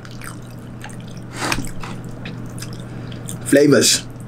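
Someone eating pepper soup with rice: scattered light clicks of a fork against the bowl and wet mouth sounds while eating, over a steady low hum.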